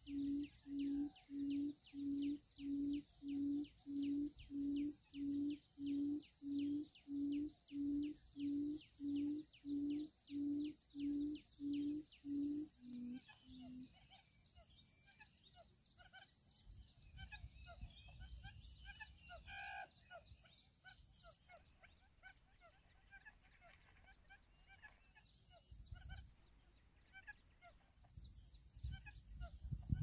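Buttonquail's low booming call: a long run of short hoots, about two a second, the last two a little lower, then it stops. A steady high whine runs underneath, and afterwards only faint rustling and a few brief chirps.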